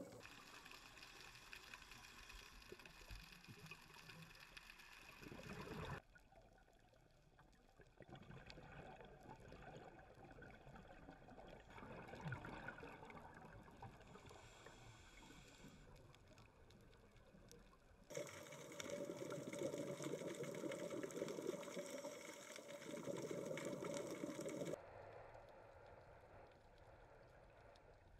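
Faint underwater water noise picked up by a dive camera, with a gurgling, trickling quality. Its character changes abruptly about 6, 18 and 25 seconds in, and it is louder between about 18 and 25 seconds.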